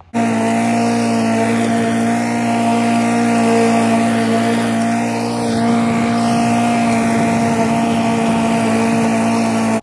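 Walk-behind petrol lawnmower engine running steadily at constant speed while mowing grass.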